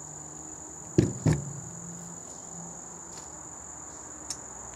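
Insects chirring steadily at a high pitch, with two sharp knocks close together about a second in.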